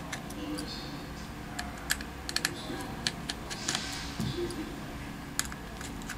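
Light, irregular clicks and ticks of a precision screwdriver bit working the small screws of a smartphone's inner metal frame.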